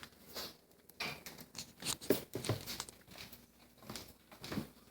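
Morkie puppy eating from a bowl: irregular crunching and clicking as it chews.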